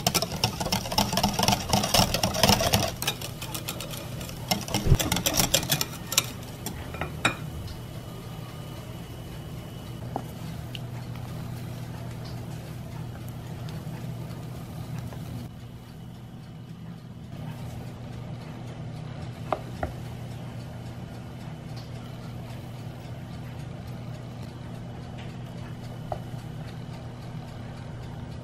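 Wire whisk clattering rapidly against a glass bowl while stirring beaten egg whites into an egg custard, loudest in the first few seconds and stopping after about six seconds. After that, a steady low hum with a few faint taps.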